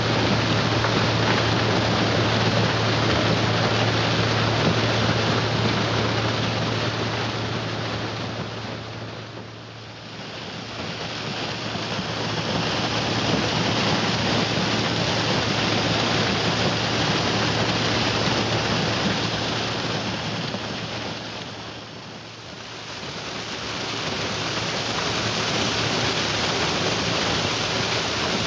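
Geringhoff Mais Star Horizon corn header on a Claas Tucano 440 combine harvesting maize: a dense rushing crackle of dry stalks and leaves being pulled through the row units, over a steady low hum from the machine. The sound dips and swells back twice, about ten and twenty-two seconds in.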